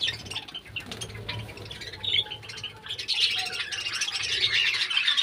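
A large caged flock of budgerigars chirping and chattering together in many short high calls, the chatter growing busier about three seconds in.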